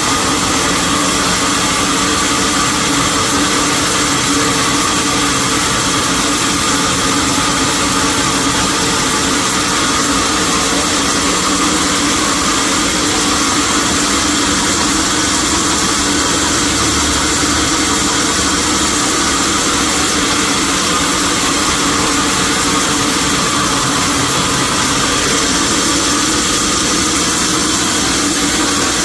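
Sawmill machinery running steadily, a loud, even machine noise that holds the same level without a break.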